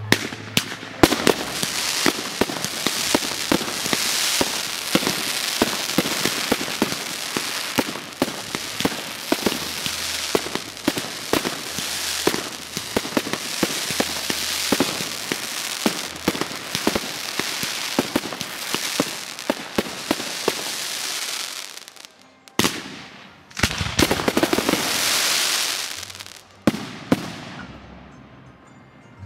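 Aerial fireworks going off in a dense, rapid crackle of many sharp pops and bangs. The crackling breaks off briefly near the end, starts again in a second burst, then dies away.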